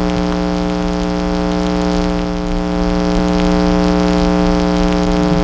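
A steady droning hum held at one unchanging pitch, with many overtones.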